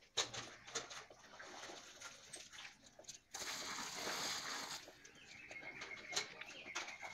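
Water poured from a bucket splashing into a metal basin, about three seconds in and lasting about a second and a half, with scattered knocks and clicks around it. A thin, steady high squeak starts near the end.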